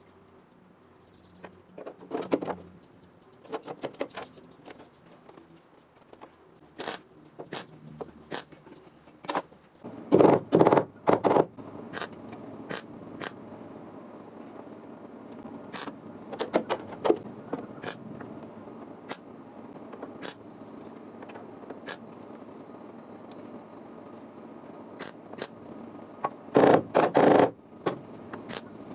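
Work on car-body sheet metal: irregular sharp knocks and clicks, some in quick clusters, with scraping between them.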